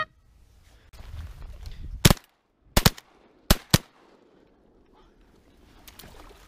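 A volley of about five shotgun blasts in quick succession from two hunters firing together, starting about two seconds in and over within two seconds.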